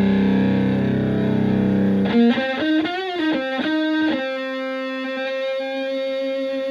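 Electric guitar played through a Tone Bender MkI-style fuzz pedal into a Twin Reverb-style amp. A fuzzed low note sustains for about two seconds, then a higher note is bent up and down a few times and held with long, even sustain.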